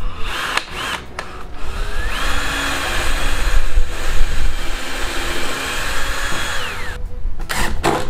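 Ryobi cordless drill running into the wood of a 2x lumber hive body: a couple of short trigger pulls, then one long steady run that spins up about two seconds in and winds down near the end.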